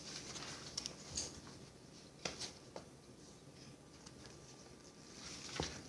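A few light clicks and scrapes of a utensil against a cup while flour is mixed into runny homemade play dough, with quiet stretches in between.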